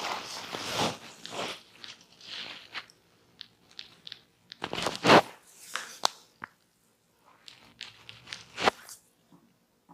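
A barber's hands massaging close to the microphone: irregular rubbing and crunchy scratching sounds, the loudest about halfway through, with a couple of sharp clicks in the second half.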